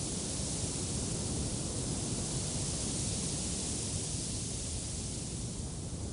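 Wind blowing: a steady rushing hiss over a low rumble, swelling slightly and easing off a little near the end.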